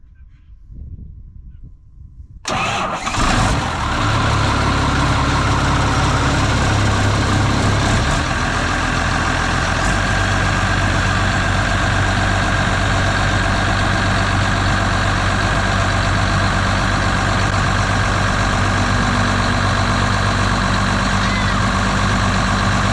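A Case farm machine's diesel engine starts about two and a half seconds in and runs steadily, its speed settling at about eight to ten seconds. This is its first run after the cracked radiator was repaired and refilled with coolant.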